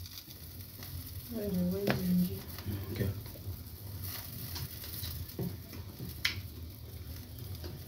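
Food frying in a pan on a gas stove, a faint steady sizzle, with a few sharp clicks and knocks from handling in the kitchen. A short vocal sound comes about a second and a half in.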